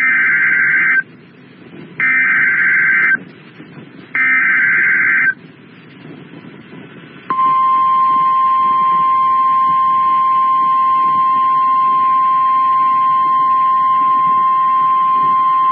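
NOAA Weather Radio alert opening: three one-second bursts of SAME header data, a harsh digital screech, then the steady 1050 Hz attention tone held for about eight seconds. Together they announce an incoming weather warning broadcast.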